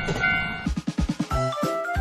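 Railroad crossing bell ringing its repeating clang, about twice a second, over a train's rumble, then cut off about half a second in by music. The music opens with a quick run of drum hits, then a melody over a beat.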